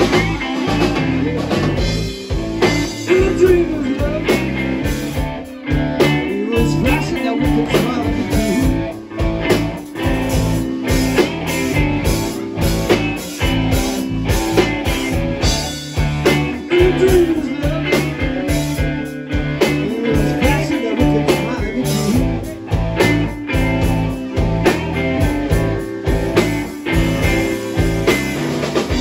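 Blues-rock band playing: electric guitars, bass guitar and a drum kit keeping a steady beat.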